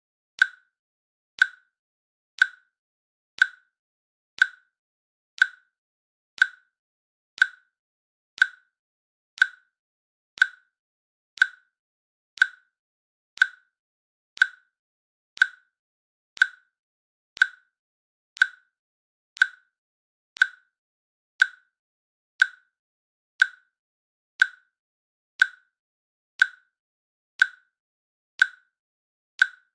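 Timer click sound effect ticking once a second, each a short sharp click with silence between.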